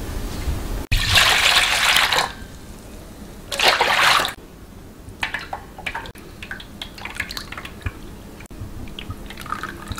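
Blended fruit liquid poured into a stainless steel bowl in two splashing pours, the first about a second in and the second near four seconds, followed by light dripping and trickling as it is strained through a mesh sieve.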